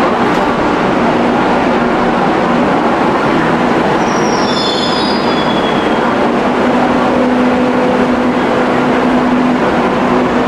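Madrid Metro train running on the rails with a loud, steady rumble. About four seconds in comes a brief high wheel squeal that falls in pitch, and from about halfway a steady low motor hum sets in.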